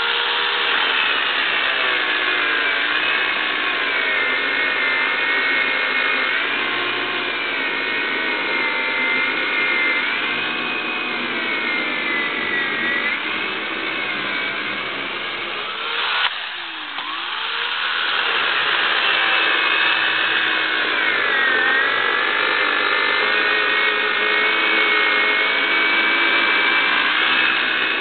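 Poulan 3.5 horsepower electric chainsaw running as it cuts through wet birch, its motor whine sagging and rising in pitch as the chain loads up in the wood. About halfway through there is a click and the motor briefly slows, then runs back up.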